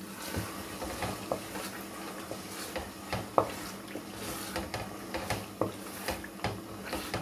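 Wooden spoon stirring a thick stew in a pot, with irregular scrapes and knocks of the spoon against the pot, one sharper knock about three and a half seconds in. A steady low hum runs underneath.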